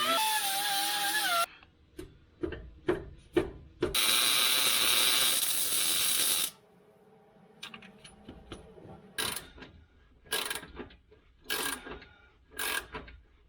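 Socket ratchet wrench tightening an upper control arm bushing bolt, with a run of short ratcheting clicks about every half second, one burst per swing of the handle. It is preceded by two spells of loud steady power-tool noise, the first with a wavering whine.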